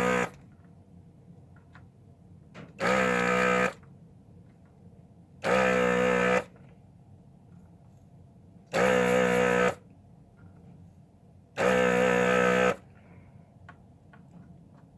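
Hakko 808 desoldering gun's built-in vacuum pump running in short bursts of about a second, four times about three seconds apart: a steady buzz each time it sucks molten solder off an IC pin.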